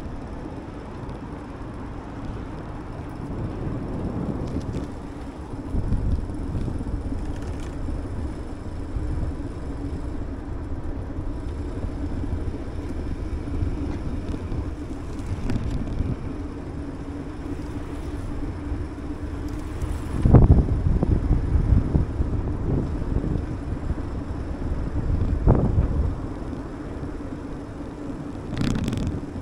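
Wind on the microphone and road rumble from a moving bicycle on a paved path. Heavier rumbles come about two-thirds of the way through and again a few seconds later, with a few short knocks near the end.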